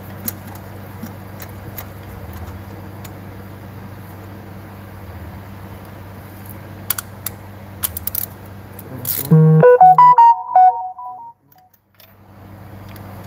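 Steady low hum with a few light metallic clicks from a spark plug socket and extension bar being handled. About nine seconds in, a loud short electronic tune of stepping notes plays for about two seconds, then the sound cuts out briefly.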